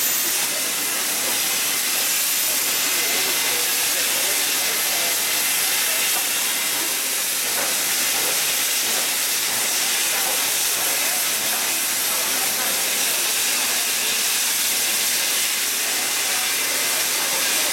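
Steam locomotive hissing steadily with escaping steam as it rolls slowly past.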